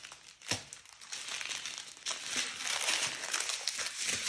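Small plastic zip bags of diamond-painting drills crinkling and rustling as they are handled, with a sharp tap about half a second in.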